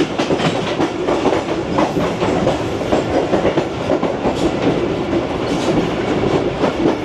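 Passenger train running at speed, heard from on board: a steady rumble with the wheels clattering rapidly over the rail joints.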